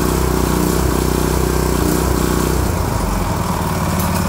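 Kawashima GE700B 7 hp, 208 cc four-stroke gasoline stationary engine running steadily, freshly started from cold; its note changes about three seconds in.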